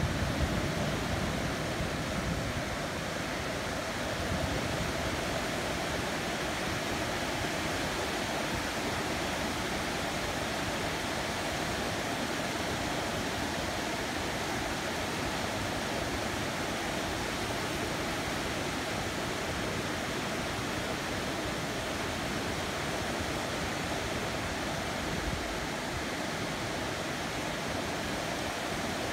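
Heavy rain falling steadily, a dense even hiss with no let-up; a low rumble fades out in the first couple of seconds.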